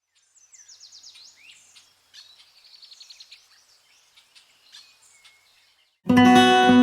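Songbirds singing: quick trills of rapidly repeated high chirps with other short calls mixed in. Near the end the birdsong stops and much louder acoustic guitar music begins.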